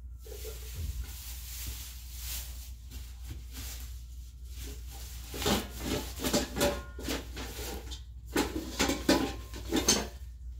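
Stored items being handled and shifted about: irregular rustling, scraping and knocking, busiest in the second half, over a steady low hum.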